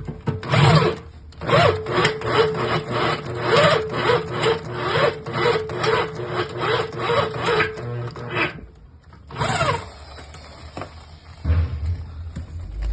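Rhythmic scraping strokes, about two a second, over a steady hum. They stop about eight and a half seconds in, and one short burst follows a second later.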